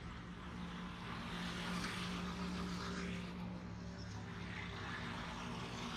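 Motorcycle engines passing close in street traffic: a steady engine hum over road noise that swells about two seconds in and again near the end.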